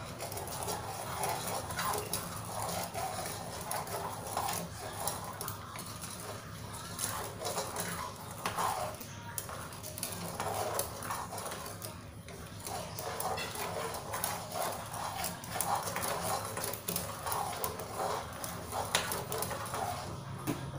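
Wire whisk stirring a liquid tea-pudding mixture in a saucepan, with many short clicks and scrapes of the whisk against the pan as the mixture heats toward the boil.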